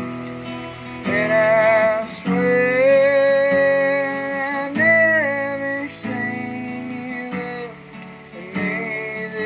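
Acoustic guitar strumming chords under singing: long held notes that slide into pitch and waver.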